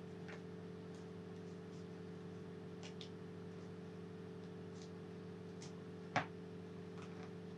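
Quiet small-room tone with a steady low hum, and a few faint ticks and one sharper click about six seconds in as hands work a cord knot loose at the neck of a plastic bag.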